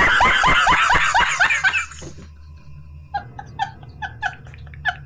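A man laughing hard: a loud run of rapid, high-pitched cackles for about two seconds, then quieter laughs in short pulses, about three a second.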